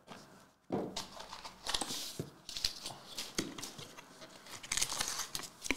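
Trading-card box being opened and handled by hand: rustling, crinkling card and packaging with small clicks and taps, starting about a second in.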